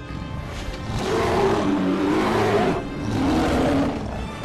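An armoured polar bear roaring twice over background film music: one long roar starting about a second in and lasting nearly two seconds, then a shorter one right after.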